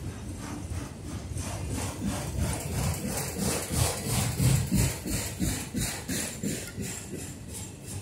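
Freight train of autorack cars rolling past, its steel wheels clattering on the rails in a quick, even rhythm over a low rumble; the clatter swells to its loudest about halfway through and eases off near the end.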